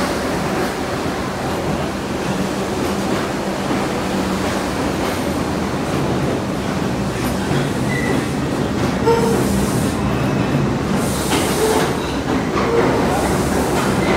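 New York City Subway R62A train running past the platform: a steady rumble of steel wheels on rail with some clicking. A few brief wheel squeals come in the second half.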